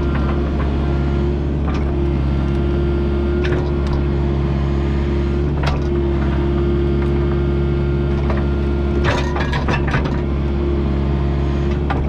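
Kubota U55-4 mini excavator running steadily under load, with sharp clanks from the working machine and a cluster of them about nine seconds in.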